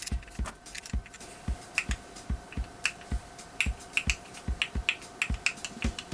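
Mechanical keyboard switches on a fidget toy being pressed and released, clicking at an uneven pace of about three clicks a second.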